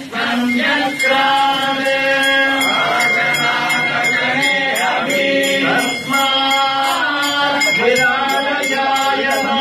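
Devotional Hindu chanting sung to music: long held sung notes that change pitch every second or so, over a light, regular ticking beat.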